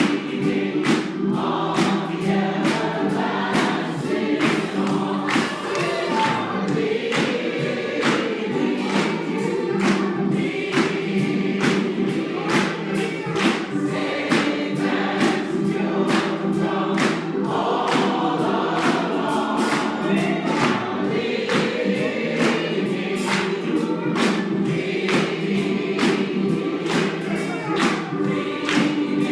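A church congregation singing a gospel song together, held to a steady percussive beat.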